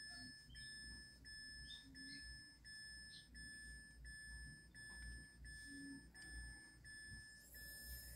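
Faint electronic warning beep: one high tone that repeats about three times every two seconds, each beep long with only a short gap. There is a brief rustle near the end.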